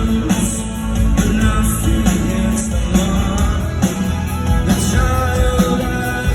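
Rock band playing live: drums, bass and electric guitars, with a voice singing over them.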